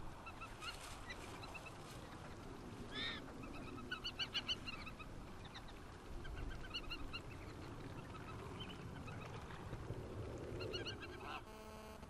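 Fulvous whistling ducks calling: short high-pitched whistled notes, some single and some in quick runs, repeated throughout.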